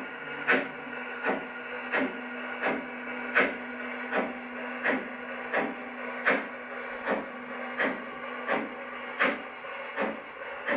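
LGB garden-scale model steam locomotive running slowly, with a regular chuff about every three-quarters of a second over a steady hum; the hum stops about three-quarters of the way through while the chuffing carries on.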